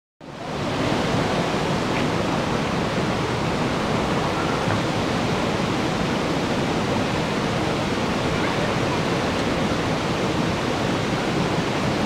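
Shallow woodland creek rushing over stones: a steady, even rush of water that sets in just after the start.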